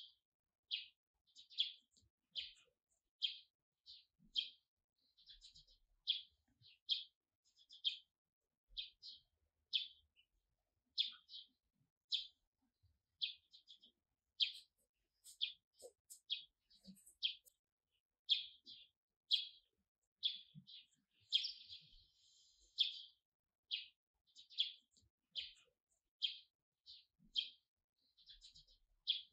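A small songbird chirping over and over: short, high chirps, about one or two a second, in an even series.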